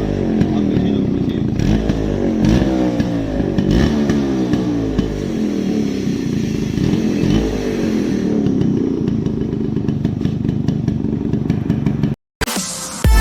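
Yamaha RX-135's stock-exhaust two-stroke single-cylinder engine being revved in repeated blips, the pitch rising with each one, then running more evenly. It cuts off briefly near the end.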